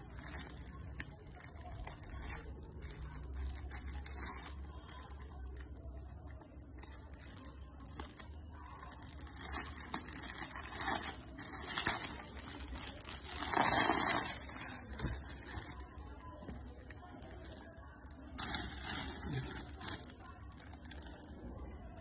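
Clear plastic packaging crinkling and rustling in irregular bursts as the bag around a saree is handled and torn open, loudest about two-thirds of the way through. A faint steady low hum runs underneath.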